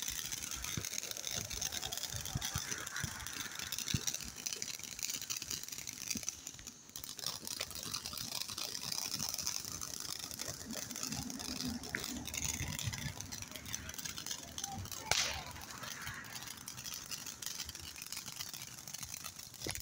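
Ground fountain firework spraying sparks: a steady hiss with scattered crackles and pops.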